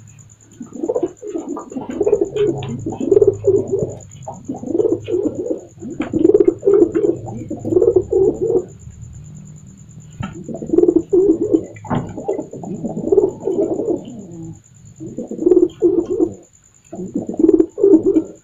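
Domestic pigeon cooing over and over in bouts of one to two seconds, with a few short breaks: the male's courtship coo, asking to mate rather than fighting.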